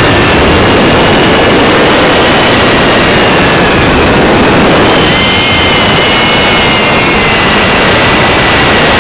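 FPV quadcopter's motors and propellers, picked up close by the camera mounted on the drone: a loud, steady rush of noise with a high motor whine that steps up in pitch about five seconds in.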